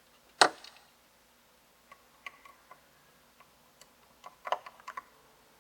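A sharp click about half a second in, then scattered small ticks and taps, a quick cluster of them near the end: a small Phillips screwdriver and tiny screws being handled against an iPad's frame while the LCD's corner screws are taken out.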